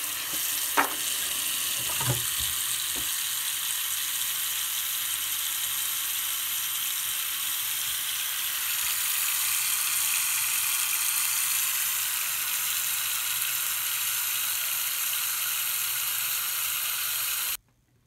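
Steady hiss of liquid pouring in a stream into a bowl onto a paper sign, with a couple of sharp knocks in the first few seconds; the hiss stops abruptly near the end.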